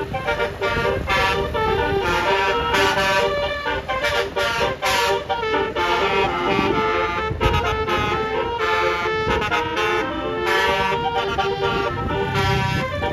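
Indonesian bus 'telolet' multi-tone air horns (basuri) playing a melody of held notes broken by short, repeated 'dut dut' blasts.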